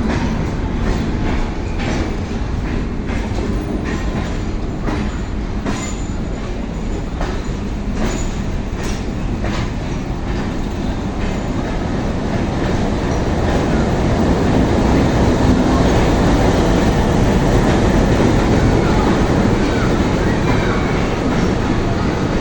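Tren Patagónico passenger train running on the rails: wheels clicking over rail joints at an uneven beat for the first several seconds, then a steady rumble that grows louder about halfway through.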